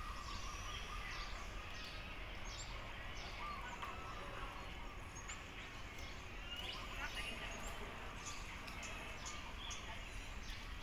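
Outdoor background noise with a steady low rumble and scattered short, high chirps.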